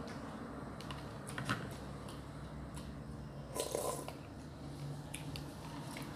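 Eating sounds from cup noodles: soft chewing and small clicks of a spoon in the noodle cup, with a louder slurp from the cup's rim about three and a half seconds in.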